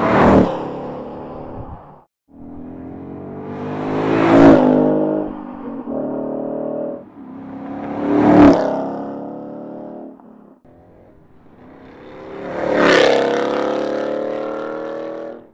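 Four drive-bys of a 2015–2017 Ford Mustang GT's 5.0-litre V8, played one after another on the stock exhaust, then the Borla Touring, S-Type and ATAK systems. Each pass swells to a loud peak as the car goes by and then fades, about four seconds apart.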